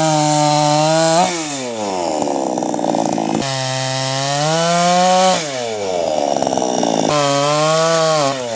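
Chainsaw engine running at high revs, then sagging in pitch as the chain bites into the wood and cuts with a rough, rasping note. This happens about a second in, again past the middle, and once more near the end.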